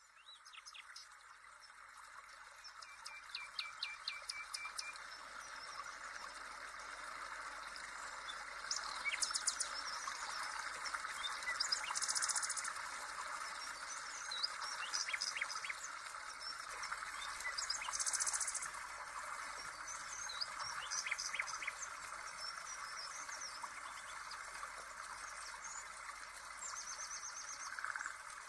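Birdsong laid over a steady background hiss: several birds chirping and trilling, fading in over the first couple of seconds.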